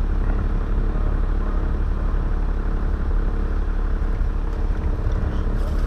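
An engine idling steadily, giving a low, even drone with no change in speed.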